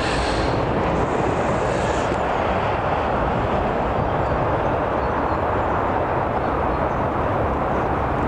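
Wind blowing over the microphone: a steady rushing with a low rumble, unbroken throughout.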